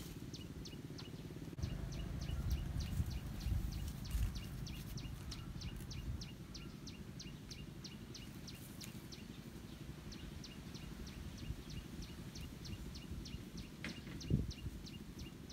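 A small animal outdoors chirping in a steady rhythm, short high chirps about three a second, over a low rumble of wind or handling noise that swells for a few seconds early on. A single thump near the end.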